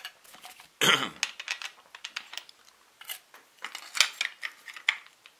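Clicks and light knocks of metal parts being handled as a cutting disc is set onto the spindle of an Interskol UShM-125/1100E angle grinder, with one short, louder noise about a second in.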